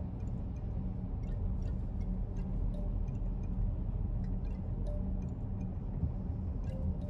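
Steady low rumble of a car's engine and tyres on a wet road, heard inside the cabin, with scattered light ticks of raindrops hitting the windshield.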